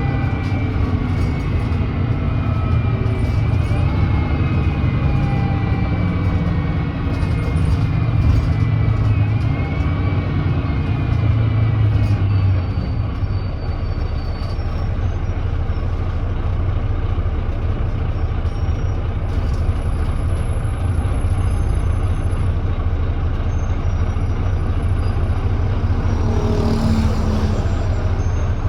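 Volvo B9TL double-decker bus heard from on board: its 9.3-litre Volvo D9B diesel and ZF Ecolife automatic gearbox running under way, with a whine slowly falling in pitch. The engine note eases off about halfway through. A short hiss of air comes near the end.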